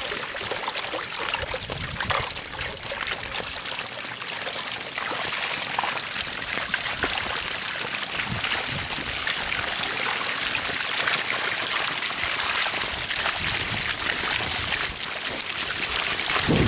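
Water rushing and splashing as it churns and drains through the bag of a mesh fishing net holding a catch of small fish.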